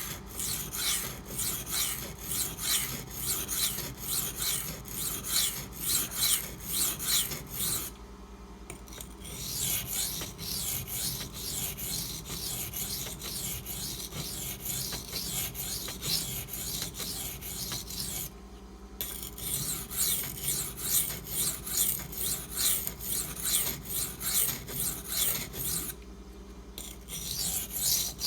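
Maxamet steel knife blade drawn in repeated strokes across a coarse 150-grit silicon carbide oil stone, an even rasping about two strokes a second, with brief pauses three times. The edge is being ground back to remove chipped, damaged apex.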